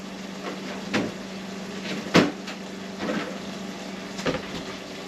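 Four short knocks and clunks of kitchen items being handled, the loudest about two seconds in, over a steady low hum.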